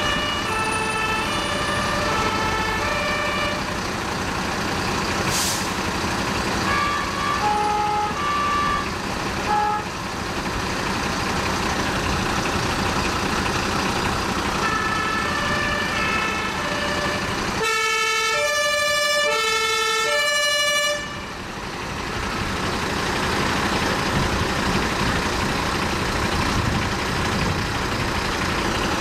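German fire-engine two-tone horns (Martinshorn) sounding in short bursts of alternating high and low notes over steady truck engine noise. The loudest and clearest burst comes about two-thirds of the way through and lasts about three seconds.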